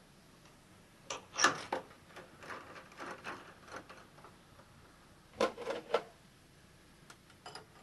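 Metal tooling being handled and fitted on a milling machine: a scatter of short clicks and knocks, loudest about a second and a half in and again in a quick cluster a little past five seconds, with a few lighter taps near the end.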